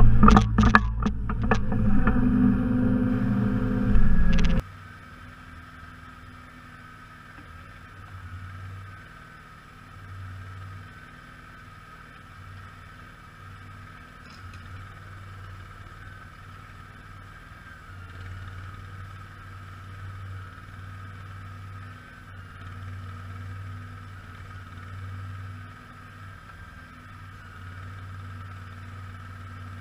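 Simplicity Legacy XL garden tractor's engine running, loud with several sharp knocks for the first few seconds. About four and a half seconds in it drops suddenly to a quieter steady hum that swells and eases every couple of seconds.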